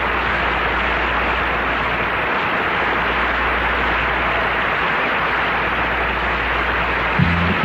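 Studio audience applauding steadily, with musical notes starting over it just before the end.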